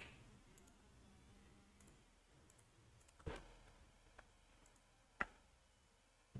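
Near silence with two faint computer mouse clicks, one about three seconds in and one about five seconds in.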